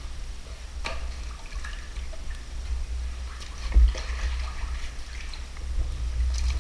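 Water sloshing and dripping in a flooded cave passage, with two sharp knocks, about one second in and just before four seconds in.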